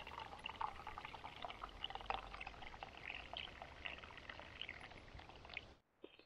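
Tea being poured into a cup, a steady trickling pour that cuts off suddenly near the end.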